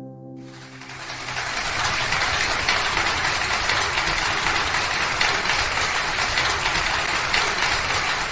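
Audience applauding, swelling in over about the first second while the last acoustic guitar chord rings out, then holding steady.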